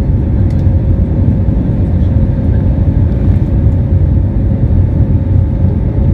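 Jet airliner cabin noise at a window seat over the wing: the loud, steady rumble of the engines and rushing air, with a steady hum running through it.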